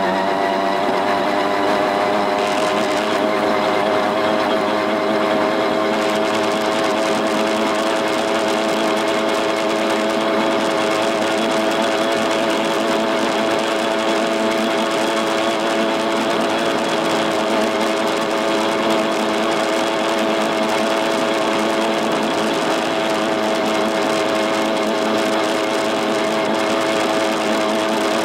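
A 58 cc two-stroke brushcutter engine driving a motorized bicycle on the move, a loud steady buzz. Its revs climb in the first second, then hold level at a high, even pitch.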